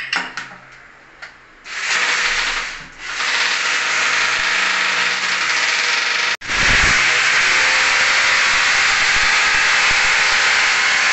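Electric drill boring into ceramic wall tile. A few clicks, then the drill starts about a second and a half in and runs with a steady, harsh hiss, easing briefly near three seconds and breaking off abruptly for an instant a little after six seconds before running on.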